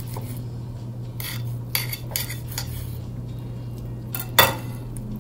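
Steel chef's knife scoring a whole pompano on a wooden cutting board, with four short knocks of the blade reaching the board, then a louder clink with a short ring about four seconds in as the knife is set down on a ceramic plate.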